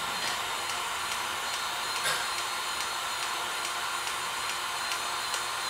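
Powered grease gun running steadily with a high whine, pumping grease into a sway bar link's grease fitting to fill the link's tube.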